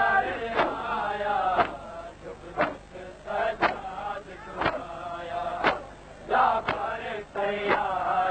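Male voice chanting a noha, a Shia lament, in a slow sung recitation, with a sharp percussive beat about once a second keeping time.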